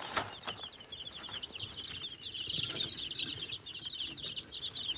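A brooder full of chicks under a week old peeping non-stop in many overlapping high chirps, excited as they scramble for mealworm treats.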